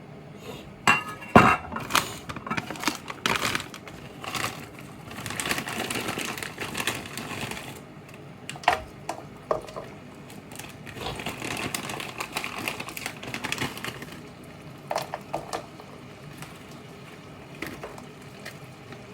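Kitchen clatter of a pan and utensils: clinks, knocks and scraping, loudest about a second in.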